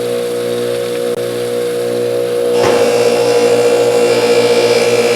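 Bench motor spinning a 6-inch 320-grit Scotch-Brite wheel with a steady hum; a little over two and a half seconds in, a steel ratchet part is pressed against the wheel, adding a louder scrubbing hiss as the rusted surface is cleaned up.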